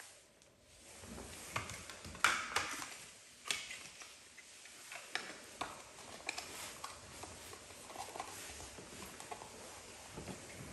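Hands handling a white Devialet Phantom speaker: scattered light taps, clicks and rustles as it is turned over and its back panel is fingered, the sharpest click about two seconds in.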